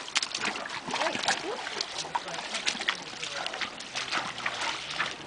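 People wading through a shallow, rocky stream in waders and boots: irregular splashing and sloshing footsteps in the water over the running stream.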